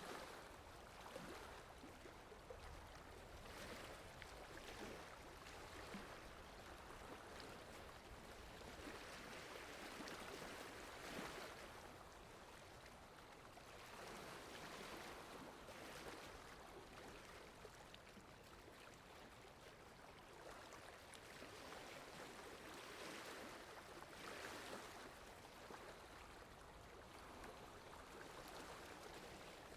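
Faint water lapping in soft, irregular swells every second or few, over a steady low wind rumble.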